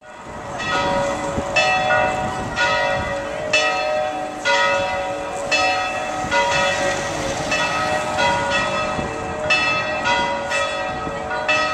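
Church bells pealing: several bells of different pitches struck about once a second, each stroke ringing on into the next.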